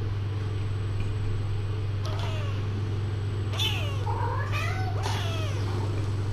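Kittens meowing: about four short, high calls from about two seconds in, some rising then falling in pitch, over a steady low hum.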